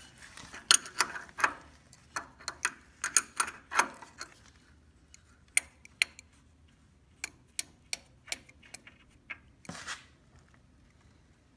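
Sharp metal clicks of a wrench working on a tight oil drain plug, many close together in the first few seconds, then sparser. A short scrape comes about ten seconds in.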